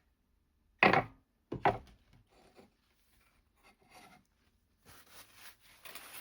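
Two sharp knocks about a second in, then light scraping and rubbing of hand tool handling, as the drill bit that slipped out is put back and tightened.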